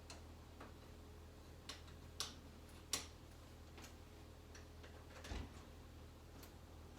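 Faint, uneven clicks of a socket ratchet at work on the Allen-head bolts of a Jeep Wrangler door hinge, with a few sharper clicks and a dull knock in the middle.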